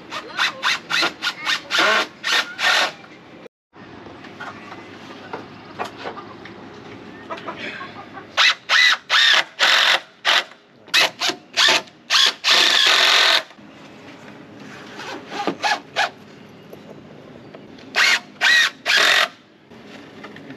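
Cordless power driver driving screws into wooden roof framing: quick runs of short trigger bursts with a high whine, in three groups, at the start, in the middle and again near the end.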